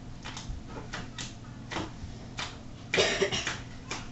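A few light ticks of playing cards being handled on a tabletop, then a short cough about three seconds in, the loudest sound.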